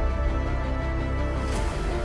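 Background music: sustained chords over a deep bass, with a short rushing swell near the end.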